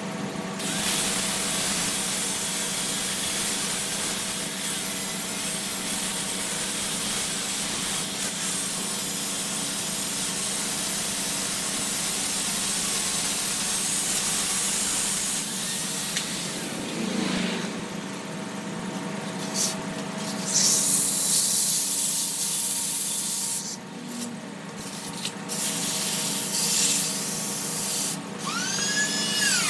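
Wood being sanded on a running electric machine: a steady motor hum under a rough rubbing hiss. The hiss drops away briefly a few times in the second half, and a wavering whine comes in near the end.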